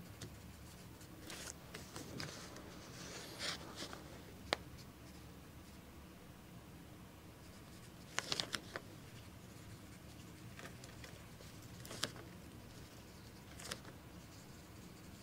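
Faint scratching of a pen writing on paper, with a few light sharp clicks and taps scattered through, a quick cluster of them about eight seconds in.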